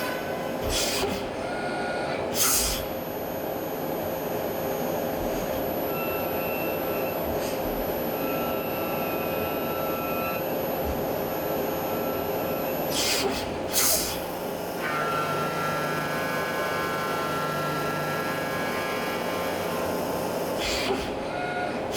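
Brother SPEEDIO U500Xd1 machining centre milling aluminium with a ø20 end mill: steady spindle and cutting noise, broken by a few brief rushing bursts. About 13 seconds in there is a tool change, and a ø21.7 side cutter takes over with a steady whining tone.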